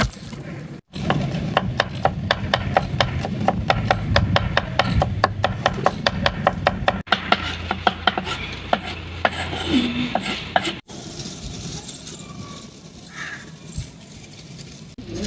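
A utensil stirring in a cooking pot, with rapid, evenly spaced clicks and scrapes of several strokes a second. It breaks off abruptly and turns quieter and more scattered in the second half.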